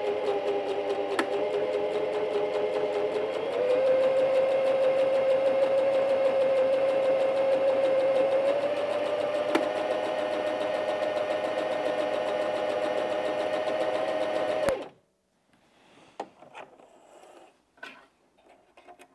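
Bernette 05 Academy sewing machine stitching a buttonhole, running steadily with a whine that steps up in pitch twice. It stops suddenly about 15 seconds in, and a few faint clicks follow.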